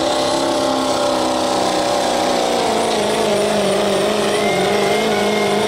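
Chevrolet Silverado pickup's diesel engine running at full throttle as it pulls a truck-pulling sled, a steady high-revving drone whose pitch sags a little about halfway through under the load. A faint high whistle joins near the end.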